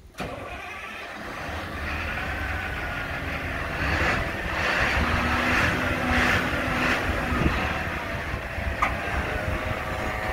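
Caterpillar 725C articulated dump truck's Cat C9.3 diesel engine running. It comes in abruptly at the start and grows louder over the first few seconds, with a faint whine over the engine noise.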